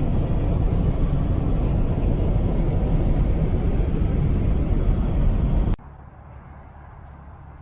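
Loud road and tyre noise heard from inside a moving vehicle, cutting off abruptly about six seconds in to a quieter, steady driving rumble.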